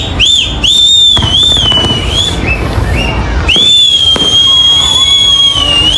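Fireworks display: low booms and crackle of bursting shells, with high-pitched whistling from whistling fireworks rising into the sky. A run of short rising-and-falling whistles comes in the first second or so, then one long, nearly steady whistle from about halfway to the end.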